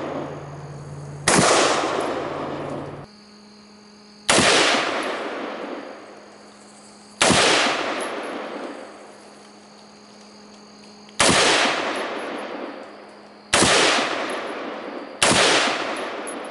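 Six single shots from a 5.56 AR-15 rifle, fired slowly one at a time, a second and a half to four seconds apart, each crack followed by a long fading echo.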